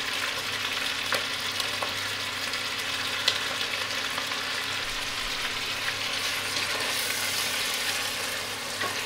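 Beef pieces frying in oil with fried onions in a pot: a steady sizzle, with a few light clicks.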